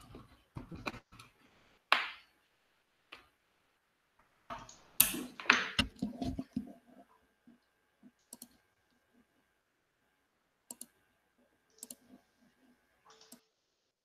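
Scattered clicks and knocks of handling at a computer desk while a network cable is being connected, with a denser, louder burst of knocks about five seconds in. A faint steady high tone sounds through the second half.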